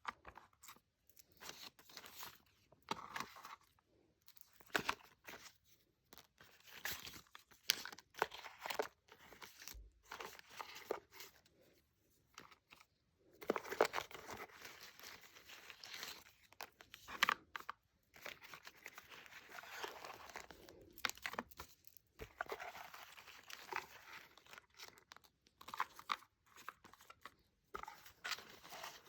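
Packaging being handled and opened: irregular crinkling, rustling and tearing in short clusters with brief pauses between them.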